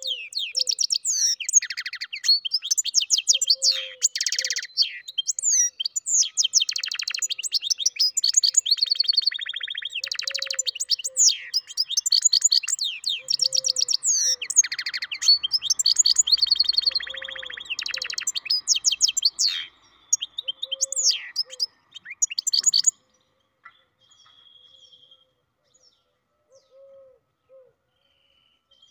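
Goldfinch × canary mule singing a long, fast song of rapid trills and chirps, which stops abruptly about three-quarters of the way through, leaving only a few faint short notes.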